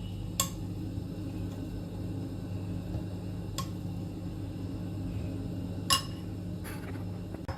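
Kitchenware clinking: three sharp knocks about half a second in, at about three and a half seconds and near six seconds, the last the loudest, with a couple of fainter taps near the end, over a steady low electrical hum.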